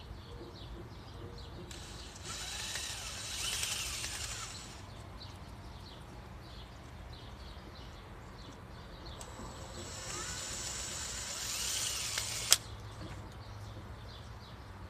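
DeWalt cordless drill running with a corn cob on its bit, spinning the cob against teeth to strip the kernels. It runs twice, about three seconds each time, and the second run stops abruptly with a sharp click.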